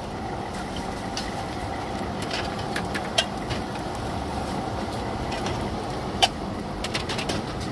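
Gas burners under a row of small lidded pans, burning with a steady rushing noise. Short metallic clinks of aluminium pan lids being handled, the sharpest about six seconds in.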